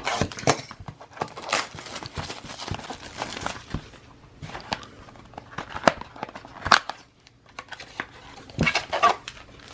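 Foil trading-card pack wrappers crinkling and rustling as the packs are handled, with irregular crackles and small clicks.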